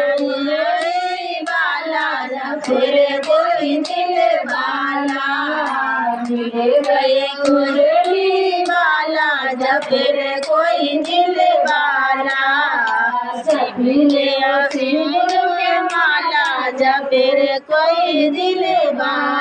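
Women singing a Hindu devotional bhajan to Shiva (Shiv charcha) in a folk style, a lead voice held close to a microphone, with steady hand clapping keeping time throughout.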